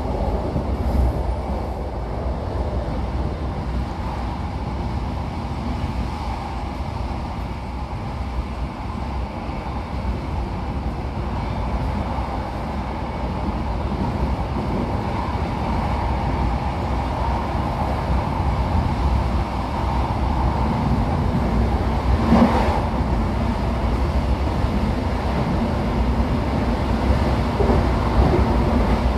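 Classic NMBS/SNCB electric multiple unit running along the line: a steady rumble of running gear and rail noise. A low hum comes in about two-thirds of the way through, followed shortly by a single knock.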